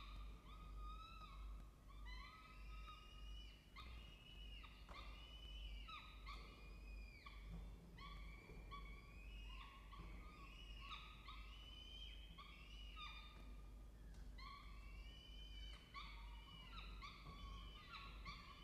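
Peregrine falcon chicks in the nest box giving faint, repeated high, downward-sliding cheeps, one or two a second and overlapping, typical begging calls while a parent feeds them.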